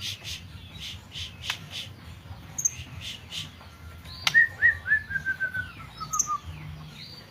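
White-rumped shama (murai batu) singing: a run of short sharp chip notes, then, about four seconds in, a quick string of notes that steps down in pitch for about two seconds.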